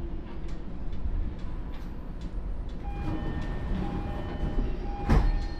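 Stationary JR East E231-series commuter car with a steady low rumble from its running equipment and a few faint ticks. From about three seconds in, faint steady tones join it, and about five seconds in there is one sharp loud clunk.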